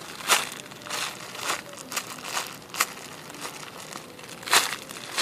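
Handling and squeezing a dim sum squishy toy: a string of short, irregular crinkling rustles, the loudest about four and a half seconds in.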